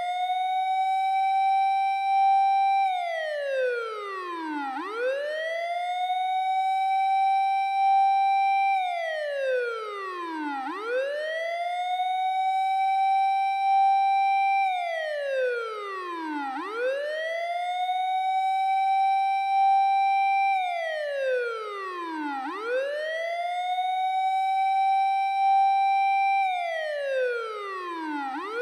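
Japanese fire engine siren wailing on its own, without the alarm bell. Each cycle climbs quickly to a steady high note, holds it for about three seconds, then slides down, and the pattern repeats about every six seconds.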